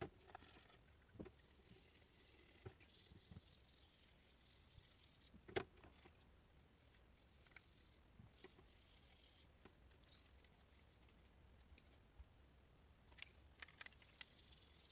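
Faint scrubbing of a rusty golf wedge's head with a stiff brush in soapy water, in short spells, with a few light knocks and clicks, the loudest about five and a half seconds in.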